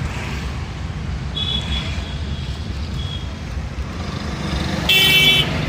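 Steady low rumble of road traffic. A brief high tone sounds about a second and a half in, and a louder half-second honk-like tone comes near the end.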